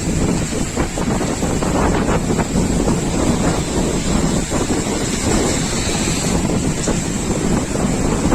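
Strong gusty wind buffeting the microphone with a constant low rumble, over heavy surf from large storm waves.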